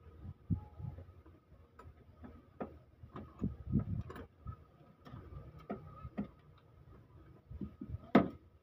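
Scattered metallic clicks and light knocks of hand tools and small valve-train parts being handled on a Toyota 2KD diesel cylinder head, with one sharper clink about eight seconds in.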